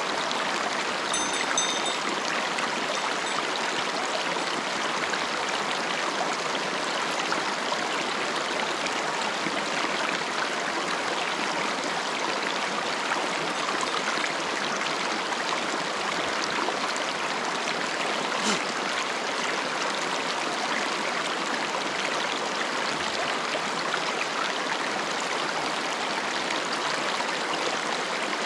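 Small, shallow mountain stream running over rocks and stones, a steady, unbroken rush of water.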